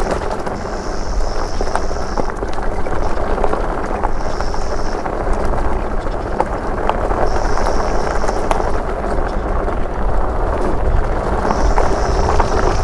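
Super73 fat-tyre e-bike riding over a rough dirt trail: wind buffeting the microphone, tyre rumble and frequent small clattering knocks. A high whine comes and goes four times.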